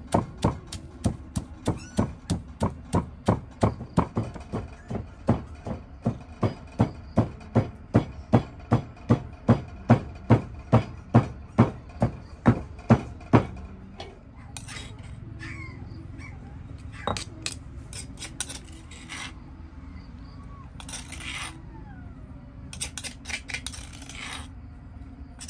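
Steady rhythmic knocking of food preparation in a kitchen, about two or three strikes a second, which stops about thirteen seconds in. After that come scattered light clicks and clinks of utensils and dishes.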